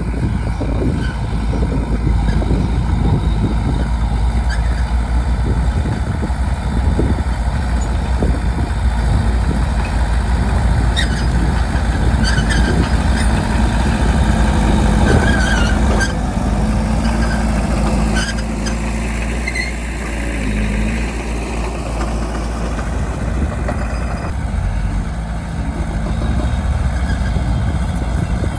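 Bulldozer's diesel engine running steadily with a deep rumble, with short high squeals and a few knocks around the middle, and a brief easing of the engine partway through.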